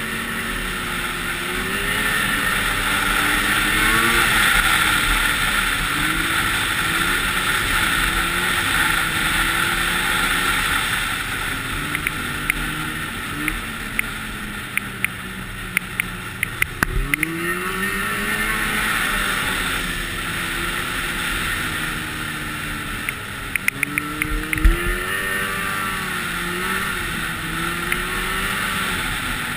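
Snowmobile engine running under way on a trail, its pitch rising and falling as the throttle is worked, with a sharp climb in revs a little past halfway. A steady rush of wind and track noise runs under it, and scattered sharp clicks and knocks come through, the loudest near the end.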